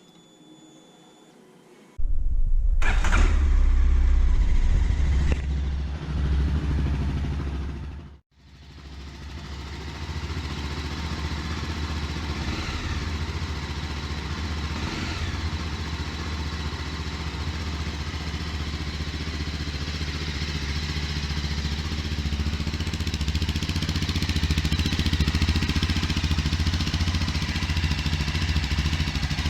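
Mahindra Mojo 300 motorcycle's single-cylinder engine starting up about two seconds in and running loud and uneven through its exhaust for several seconds. After a sudden brief dropout it runs steadily, slowly getting a little louder.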